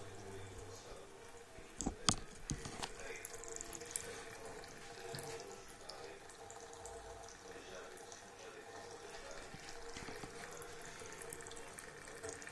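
A bathroom tap running steadily in a thin stream into a sink, with a few sharp knocks about two seconds in.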